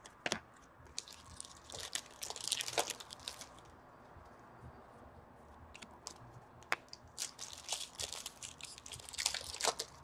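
Hockey card pack wrappers crinkling and tearing open, with sharp snaps of cards being handled. It comes in two spells, one in the first few seconds and another near the end.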